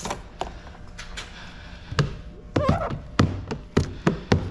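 A series of short, sharp taps and knocks, about ten scattered at uneven spacing, from tint tools and hands working against the car door and its window glass.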